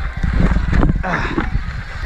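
Ibis Mojo HD4 mountain bike riding over a rough dirt trail: wind on the microphone with rattling knocks from tyres and frame over the ground.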